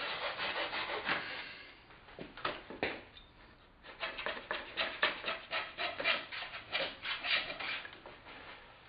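Block plane shaving a wooden kayak stringer, trimming the tapered joint where the chine stringer meets the keel stringer. A few separate scraping strokes come first, a short pause follows, and then a quick run of short strokes, about two or three a second.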